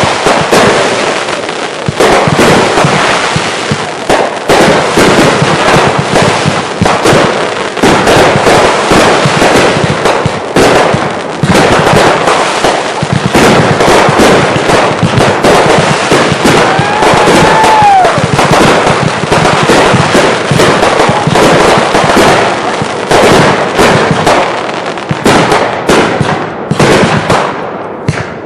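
Consumer fireworks going off in a dense finale barrage: a continuous rapid crackle of bangs and bursts with no gaps. Past halfway there is a short whistle that rises and falls, and the barrage thins briefly near the end.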